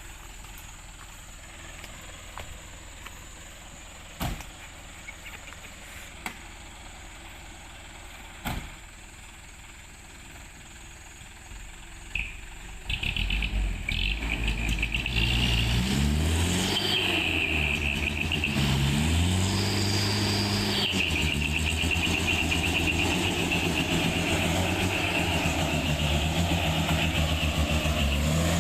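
Fairly quiet at first, with two short sharp knocks. About halfway through, a truck engine comes in loud and revs up and down a few times with a high whine over it, then runs on steadily.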